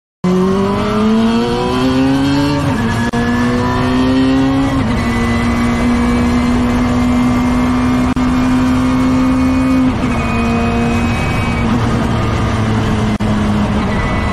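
Radical open-cockpit racecar's engine under hard acceleration, heard from the cockpit. Its pitch climbs, drops at an upshift, and climbs again. It then holds a steady high note, with another drop about ten seconds in.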